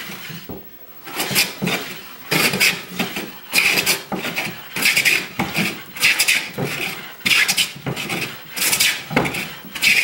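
Steel hand plane cutting along a rough-sawn sipo mahogany board, the blade shaving off thick curls. About eight strokes a little over a second apart, after a short pause about a second in.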